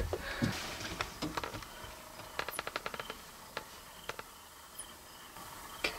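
Faint light clicks and ticks of gear being handled: a quick run of about ten clicks a little over two seconds in, with a few single ticks before and after.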